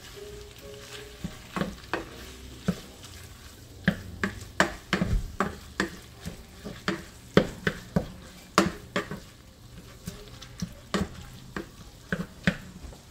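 Spatula scraping and knocking against a pan in irregular strokes as ground meat and onions are stirred and broken up, over a light sizzle of frying.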